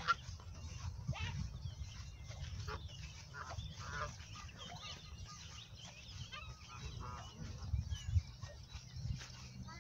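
A flock of Canada geese honking in short scattered calls over a steady low rumble.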